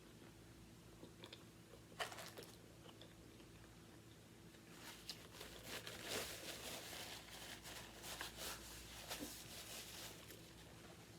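Close-miked eating of a sub sandwich: a bite about two seconds in, then a stretch of crunchy chewing from about halfway through.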